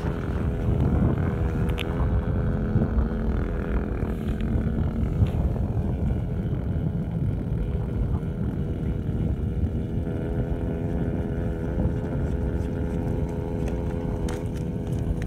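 An engine running steadily: a held, even hum over a low rumble that does not change.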